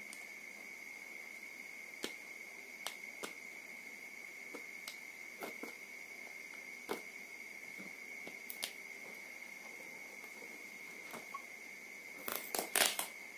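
Fingernails picking and scratching at packing tape on the end of a cardboard mailing tube: scattered small clicks, then a brief burst of crackling near the end. A faint steady high-pitched whine runs underneath.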